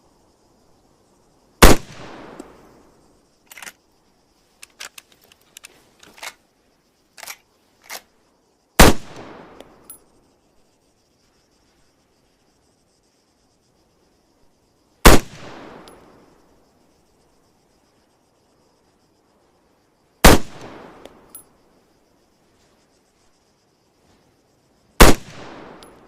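CZ 550 bolt-action hunting rifle fired five times, a few seconds apart, each sharp report followed by a fading echo. Between the first two shots comes a run of lighter clicks.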